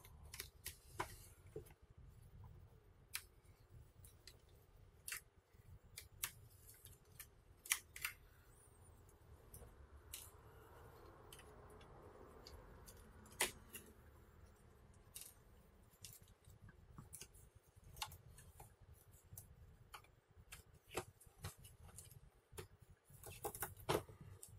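Faint, irregular small clicks and ticks from a precision screwdriver working the side mounting screws of a Toshiba Satellite C855D laptop's LCD panel, with the loosened small screws set down on the desk.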